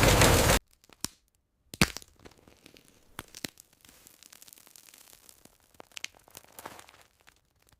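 Dense, steady machinery clatter that cuts off abruptly about half a second in, leaving faint, scattered clicks and crackles.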